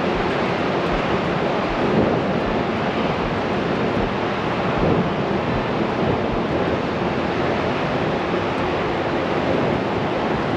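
Steady rushing noise of sea surf breaking, mixed with wind gusting over the microphone.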